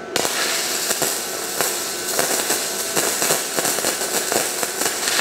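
Gasless flux-core MIG welder (Temu Hitman 200) arc crackling and spitting continuously as a bead is run, starting just after the start, with many sharp pops through it. The bead comes out poor and snaky, and the welder thinks the voltage may need turning up a little.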